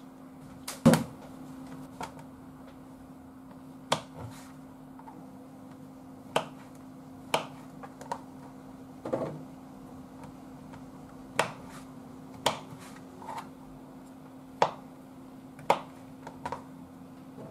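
A kitchen knife knocking on a cutting board as shiitake mushrooms are sliced: about a dozen sharp, separate chops at uneven intervals, over a steady low hum.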